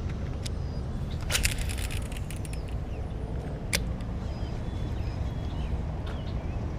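Steady low outdoor rumble, like wind on the microphone, with a quick cluster of sharp clicks about a second in, a single click a few seconds later, and faint bird chirps.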